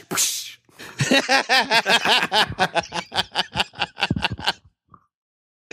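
A man laughing hard in a fast string of short, breathy bursts, opening with a sharp burst of breath; the laughter dies away about a second before the end.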